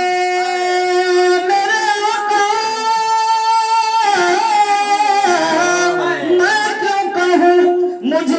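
A man singing a naat solo into a handheld microphone. He holds long drawn-out notes, the middle one higher, and bends the pitch in slow wavering turns between them.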